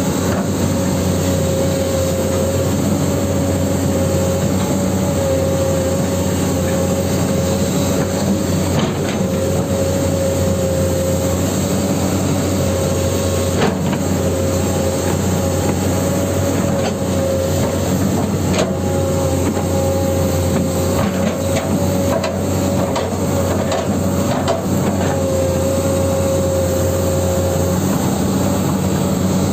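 Huina 1594 RC excavator's electric motors and gearboxes running with a steady whine and hum, with scattered clicks and scrapes as it works in sand.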